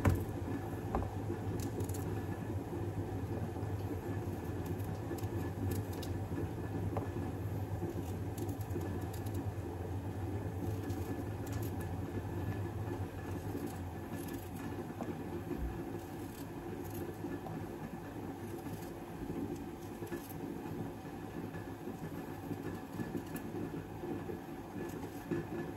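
Steady low hum and bubbling of a pan of sauce boiling on the stove, with faint light clicks now and then.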